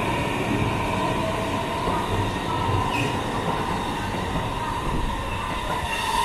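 Keihin-Tohoku Line E233-series electric commuter train at a station platform, a steady hum with high whining tones, starting to pull out near the end.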